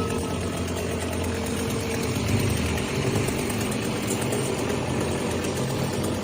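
An engine running steadily at idle, with a low, even drone.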